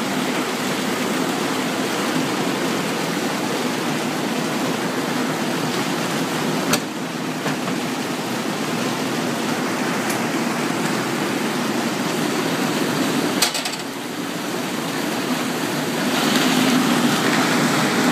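Pea-hulling machine running steadily while purple hull peas are fed through it: a constant hum under a dense rushing rattle. Two sharp knocks come about 7 and 13 seconds in, and the machine gets louder near the end.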